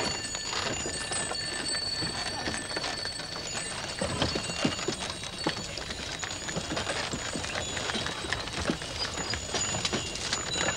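Bullock carts on a road: small bells jingle steadily over a busy clatter of hooves and cart wheels.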